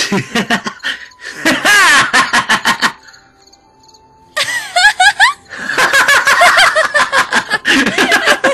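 Dubbing voices laughing in rapid repeated bursts, breaking off about three seconds in and starting again about a second later, over soft background music.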